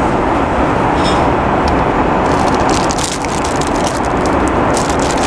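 Steady roar of an Airbus A330 cabin in flight, engine and airflow noise. From about two seconds in, a plastic wrapper crinkles as it is handled.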